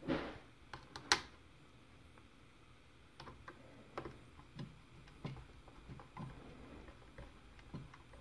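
Faint, irregular small clicks and ticks of a hand screwdriver driving screws back into a 3D-printed plastic blaster housing while the plastic parts are handled. There is a sharper click about a second in.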